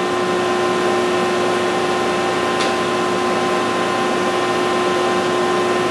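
Steady hum of running shop machinery, holding a few constant tones, with a faint click about two and a half seconds in.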